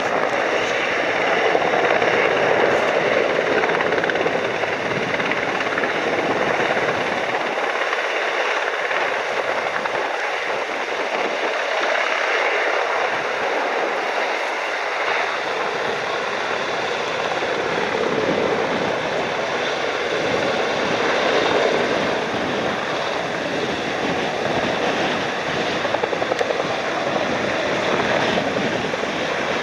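Typhoon wind and rain: a continuous rushing noise that swells and eases in gusts.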